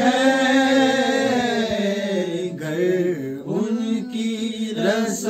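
Men singing an Urdu naat without instruments, holding one long, wavering note that dips in pitch about three and a half seconds in and then rises again.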